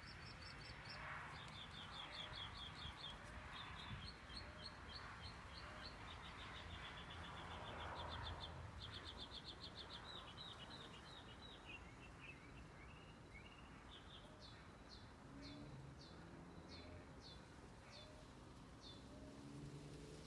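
Faint morning birdsong: fast trills of high, rapidly repeated notes, changing about two-thirds of the way through to a series of single short high chirps, about two a second. A low steady rumble lies underneath.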